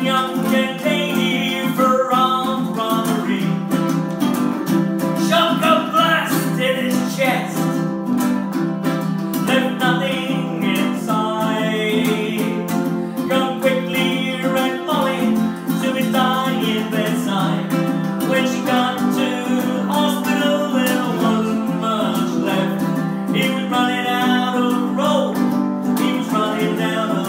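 Two ukuleles, baritone ukes, played together with steady picking and strumming in an instrumental passage of a folk song.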